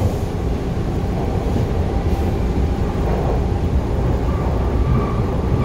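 Toronto subway Bombardier T1 train heard from inside the car: a steady low rumble of the running train, with a higher steady whine coming in near the end.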